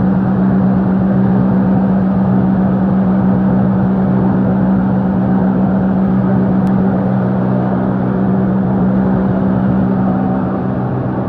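Motorboat engine running steadily at a constant pitch, over a rushing noise of wind and water.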